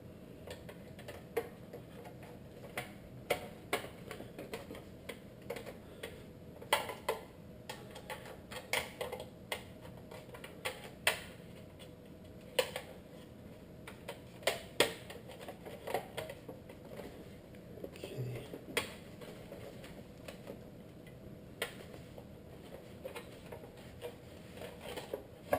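Irregular sharp clicks and taps of small hard parts being handled and fitted during headlight assembly, scattered about once a second over a faint steady hum.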